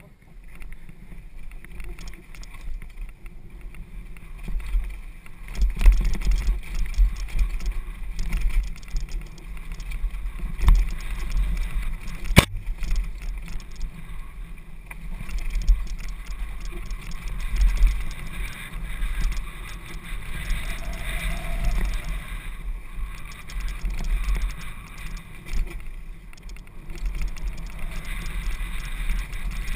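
Downhill mountain bike riding fast down a dirt forest trail, heard through a bike-mounted GoPro: a continuous low rumble that rises and falls with the terrain, with knocks and rattles from bumps and roots and one sharp click about twelve seconds in.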